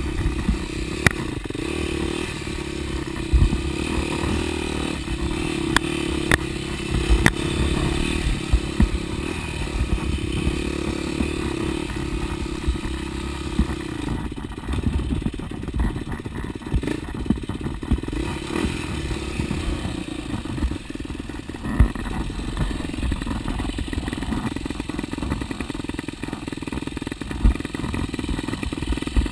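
Dirt bike engine running while the bike is ridden along a rough dirt trail, its pitch holding steady for about the first half and then rising and falling with the throttle. Scattered sharp knocks and clatter from the bike over bumps.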